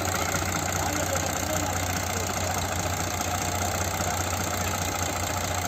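Diesel engine of heavy farm or construction machinery running steadily, with no change in speed.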